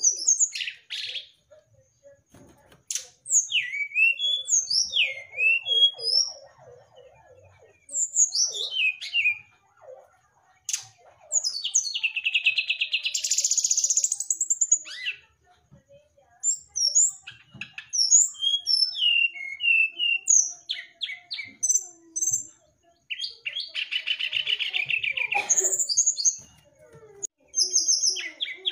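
Brown-chested jungle flycatcher singing: a string of varied, short whistled notes that slide up and down, broken by two long, fast trills about twelve and twenty-three seconds in.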